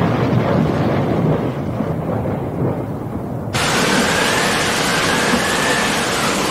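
Synthetic logo-intro sound effects: a deep, rumbling noise, then about three and a half seconds in a sudden loud hiss with a faint whistle that slowly rises and falls.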